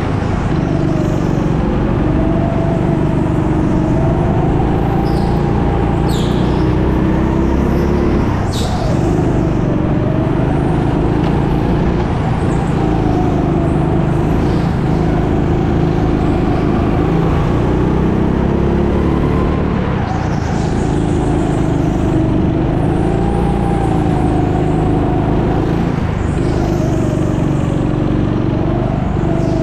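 Go-kart engine heard onboard, its pitch climbing steadily then dropping back every few seconds as the kart accelerates down each straight and lifts off for the next corner. There are a couple of brief high squeals about six and eight seconds in.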